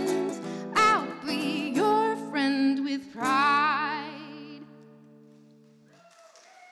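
A woman singing the closing line of a song to acoustic guitar. About three seconds in she holds a long final note with vibrato that fades out. The held guitar chord rings under it and is cut off about six seconds in.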